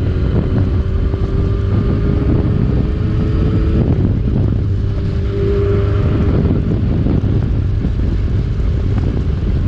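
Yamaha R6 inline-four engine running while the bike is ridden, under heavy wind noise buffeting the microphone. A faint steady engine tone surfaces now and then through the rumble.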